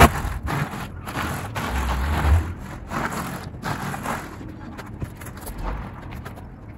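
Tyres of a slowly moving electric car crunching over a loose gravel driveway, an uneven crackle of stones.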